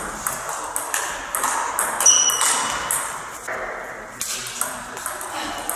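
Table tennis ball clicking sharply off the bats and the table in a fast rally of hits, with a brief high squeak about two seconds in. After a short lull around four seconds in, a serve starts a new run of hits.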